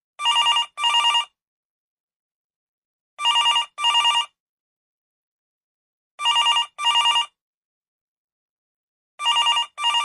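Old-style telephone bell ringtone: a trilling double ring, repeated about every three seconds, four times.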